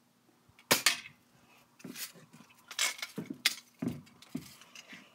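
Sharp clicks and clacks of small hard objects being handled, about seven over four seconds, over a faint steady hum.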